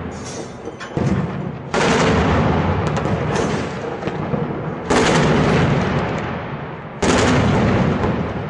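Heavy-weapon blasts: three loud bangs, about 2, 5 and 7 seconds in, each trailing off in a long rolling echo, with a smaller crack about a second in.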